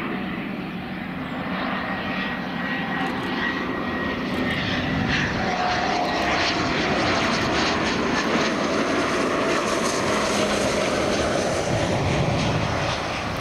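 Bombardier Global-series business jet on final approach, its twin jet engines making a steady whine with a high whistle. A lower tone slowly falls in pitch as the jet comes nearer and grows louder.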